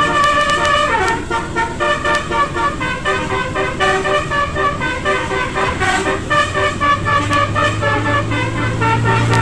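Odong-odong's multi-tone telolet horn playing a melody of held notes that step from pitch to pitch. A low engine hum joins near the end.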